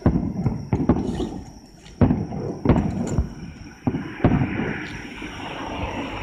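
Aerial firework shells bursting in a series of booms at irregular intervals, about seven in all, the loudest about two seconds in.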